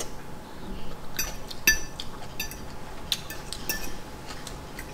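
Metal cutlery clinking against a dish: a handful of light, irregularly spaced clinks, each with a short ring.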